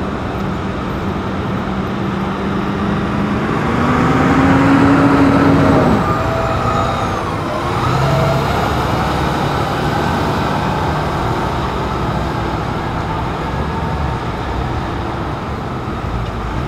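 Diesel engines of FDNY fire apparatus, a ladder truck and an engine, running on the street. One engine revs up with a rising pitch from about four seconds in, then falls away about six seconds in, over a steady heavy rumble.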